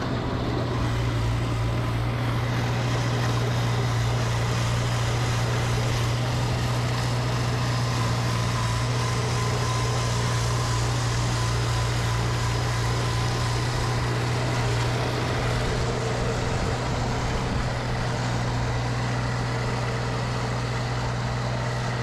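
Snowblower engine running steadily at constant speed, a low drone with the rush of the blower above it.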